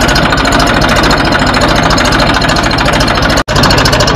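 Eicher 480 tractor's diesel engine running steadily while the tractor tills the field, with an even firing pulse. The sound cuts out for an instant about three and a half seconds in.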